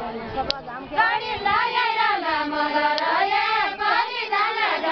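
Women's voices singing a Deuda folk song, a drawn-out melodic line with long held, sliding notes that begins about a second in.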